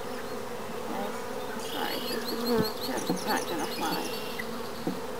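Honeybees buzzing steadily around an opened hive, with single bees flying close past the microphone in short rising and falling buzzes.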